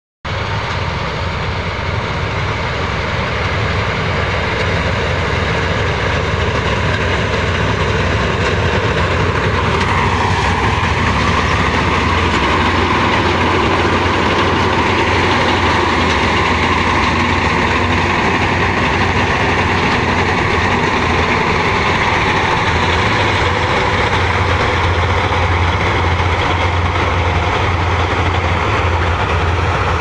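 Self-propelled combine harvester running under load while cutting wheat: a steady, loud engine drone with a strong low hum, growing a little louder and brighter after about ten seconds.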